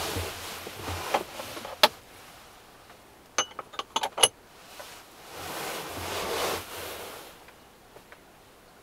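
Sleeping bag and bedding rustling as a person shifts and settles, with a quick run of sharp clicks and small taps in the middle and a second spell of rustling after it.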